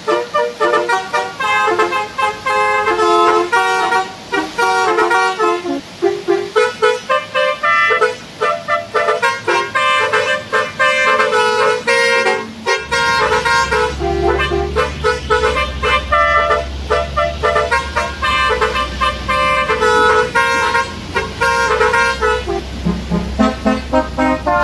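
Edited truck air-horn sounds played as a rapid tune of short notes that change pitch in steps, varied in tone and effect. A low steady rumble comes in suddenly about halfway through under the horn notes.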